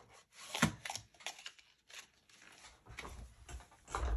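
Tarot cards being handled: a series of short taps and clicks with soft rustling between them, and a few dull low bumps near the end.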